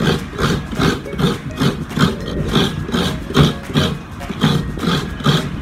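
Coconut meat being grated on a coconut scraper: a rhythmic scraping, about two to three strokes a second.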